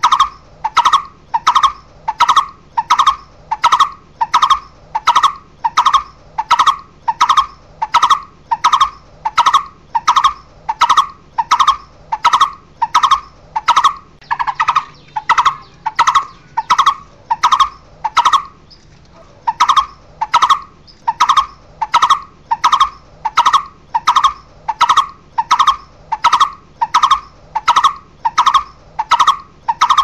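Barbet calling to its flock: a long, steady run of loud repeated call notes at an even rhythm, with one short break a little past halfway.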